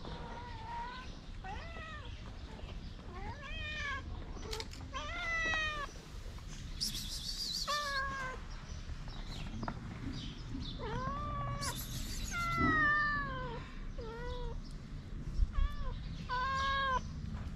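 Kittens meowing over and over, short high-pitched mews that rise and fall, coming about every second, with two brief bursts of high hissy noise around seven and twelve seconds in.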